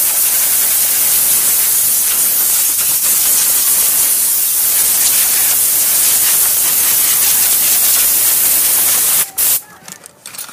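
Compressed air hissing steadily from an air-gun dust blower as it is sprayed over a dog's coat. The hiss stops about nine seconds in and is followed by a few short bursts.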